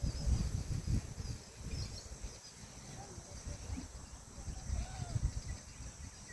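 Outdoor ambience: gusty wind rumble on the microphone, a steady high insect drone, and a few faint bird chirps. No clear peahen call stands out.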